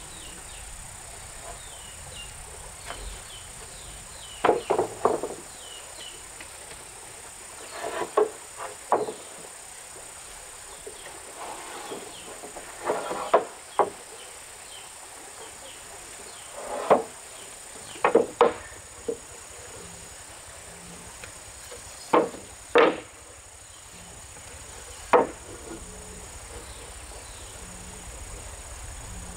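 Insects buzzing steadily and high-pitched throughout, with a string of loud, short knocks in clusters of one to three at irregular intervals through the middle. A few faint bird chirps come in the first few seconds.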